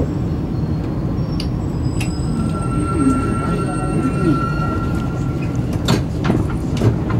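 Alstom NS-16 metro train heard from inside its cab, running through a tunnel with a steady rumble. A thin high whine comes in about two seconds in and fades out after five, and a few sharp clicks come near the end.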